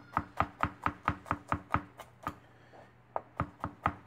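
Chef's knife mincing fresh garlic on a white plastic cutting board: a quick, even run of chops at about five a second, a short pause about two seconds in, then another run of chops.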